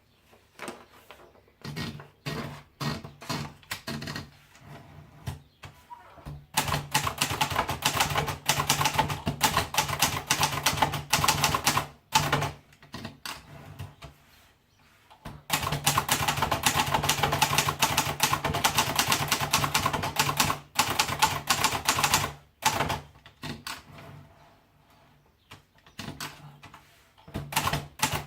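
Hermes Baby portable manual typewriter being typed on. It starts with a few separate keystrokes, then comes a long stretch of fast, steady typing, a pause of a few seconds, and a second long stretch. The strokes then thin out and pick up again near the end.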